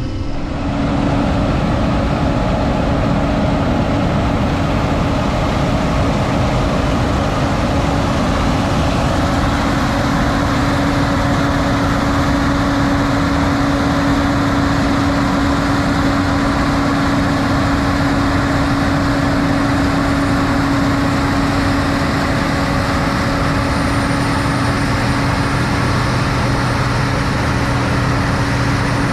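A vehicle engine running steadily, with a constant low hum and no change in speed.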